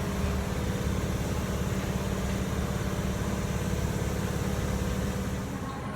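Japanese passenger train's engine running with a steady low hum, unchanging in pitch.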